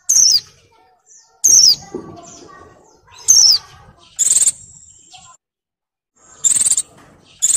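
White-eye (pleci) in breeding condition calling: three loud, sharp notes that slide down in pitch, a second or two apart, then two buzzier, higher calls, the first trailing off in a thin steady whistle. A call that draws males to answer.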